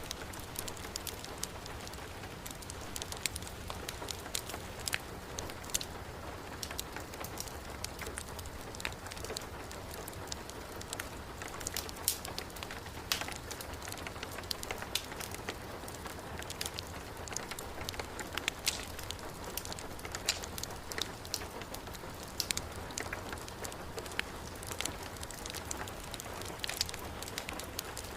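Heavy rain falling steadily, mixed with a wood fire's irregular sharp crackles and pops.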